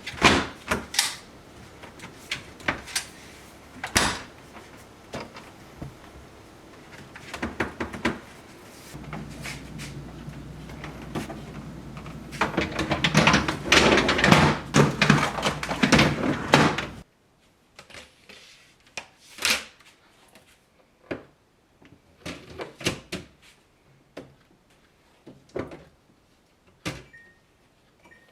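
A series of sharp clicks and knocks from parts being handled, with a steady hum and a spell of loud clattering in the middle that cuts off suddenly, followed by lighter scattered clicks.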